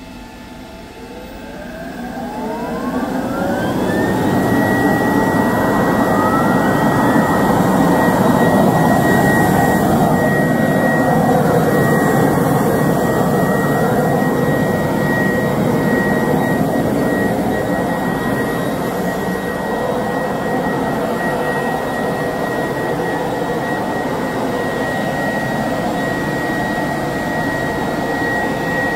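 A regenerative side-channel vacuum blower on a CNC router is starting up: a whine rises in pitch over the first four seconds or so. It then runs at speed with a steady high whine over a rush of air, drawing vacuum for the router table's hold-down.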